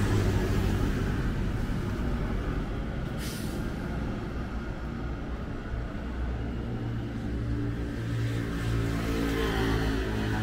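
A heavy engine running with a steady low hum, and a short sharp hiss about three seconds in.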